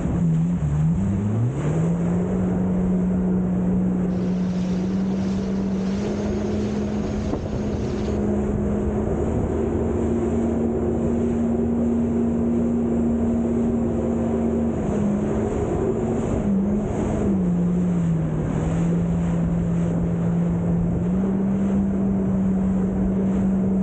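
Jet ski engine running at speed with a steady drone, over the rush of water and wind on the microphone. The engine's pitch dips and climbs back in the first couple of seconds, and again about two-thirds of the way through.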